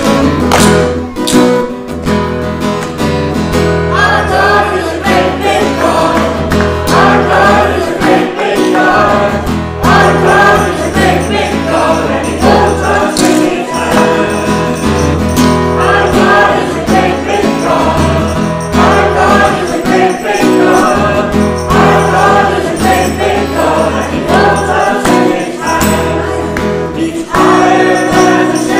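Children's group singing a lively worship song over strummed acoustic guitar. The guitar plays alone for about the first four seconds before the voices come in.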